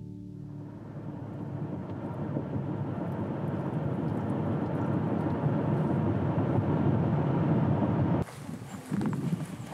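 Road and wind noise of a car driving at highway speed, a steady rushing that grows louder over the first few seconds. About 8 seconds in it cuts off sharply to a quieter outdoor sound with a few soft knocks.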